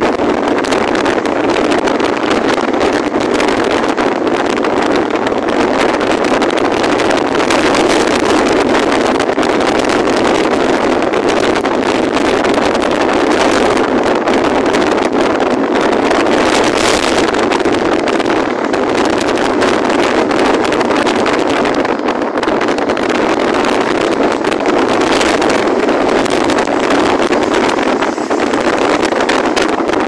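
Strong wind, a loud steady rush with a few brief louder gusts.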